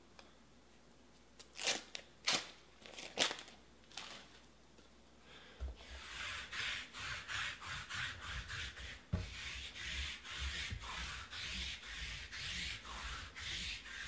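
Hands handling foil-wrapped trading card packs on a table: a few sharp crackles in the first four seconds, then, from about halfway in, a run of quick rubbing and sliding strokes, roughly two a second.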